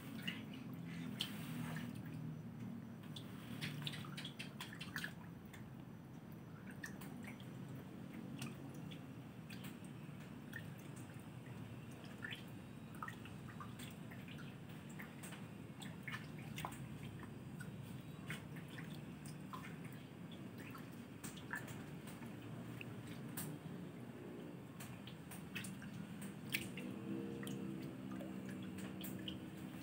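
Gourami and patin catfish gulping and splashing at the water surface: a steady scatter of small splashes, smacks and drips.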